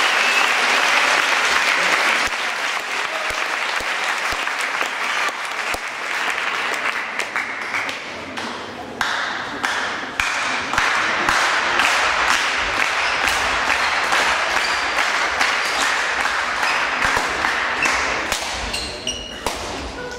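Crowd of spectators applauding in a sports hall, dense clapping that thins out into scattered claps toward the end.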